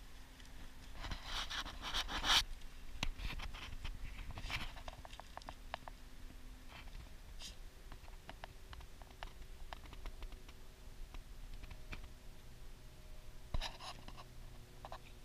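Dogs' paws and noses scratching and scuffing in loose dirt close by, in irregular bursts: loudest about a second or two in, then scattered, and again briefly near the end. A faint steady hum lies underneath.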